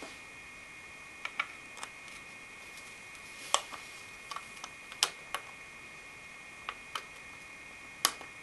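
Cooler Master TPC 812's metal back plate being handled and pressed into place on the back of a motherboard: a dozen or so scattered light clicks and taps as its mounting bolts are pushed through. A faint steady high whine sits underneath.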